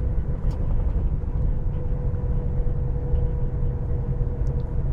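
Heavy truck pulling a loaded B-double on the highway, heard from inside the cab: a steady low engine and road rumble with a constant faint whine over it.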